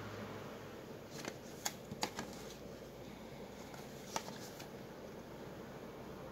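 Cardboard ink-cartridge packs being handled and swapped, with a cluster of sharp clicks and taps about a second in and two more about four seconds in.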